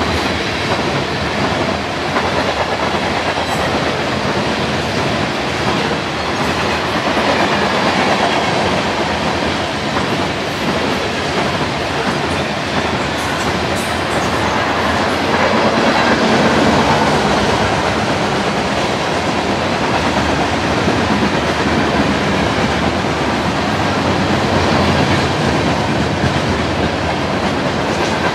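Freight cars of a BNSF train roaring past: a steady, loud rumble and rattle of covered hoppers and boxcars rolling on the rails, swelling a little around a third of the way in and again near the middle.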